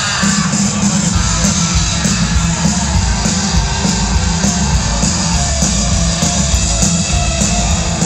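Loud live rock music from a band with guitars, played steadily with a pulsing low end.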